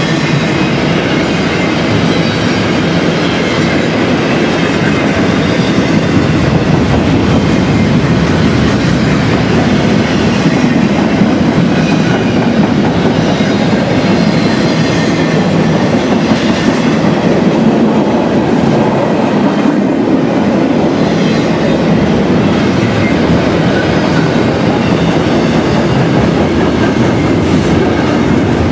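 A double-stack intermodal freight train's container well cars rolling past at speed: a loud, steady rumble of steel wheels on the rails that stays even throughout.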